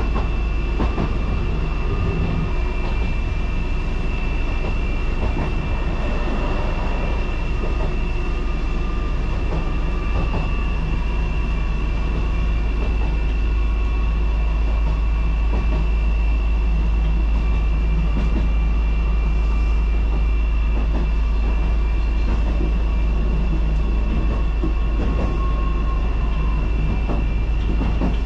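Randen (Keifuku Electric Railroad) tram running along the Kitano Line, heard from beside the driver's cab: a steady, loud rumble of the moving car with a constant high whine over it and occasional clicks of the wheels over the rails.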